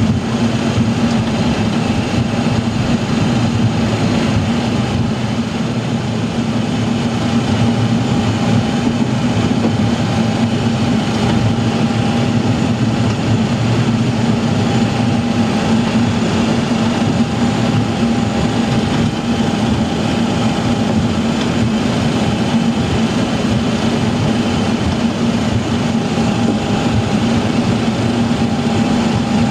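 Steady noise of a Boeing 737 Classic taxiing with its CFM56 jet engines at idle, heard inside the cockpit: an even low hum with a faint higher whine that comes and goes.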